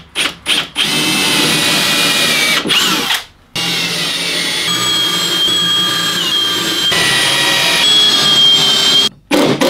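AEG cordless drill boring pilot holes into a plywood wall: a few short trigger blips, then a long steady run, a brief stop about three seconds in, another long run, and a stop near the end.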